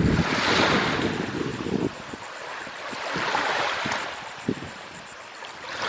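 Chesapeake Bay waves washing in, a hiss of water that swells and fades about every three seconds. Wind buffets the microphone with a low rumble, strongest in the first two seconds.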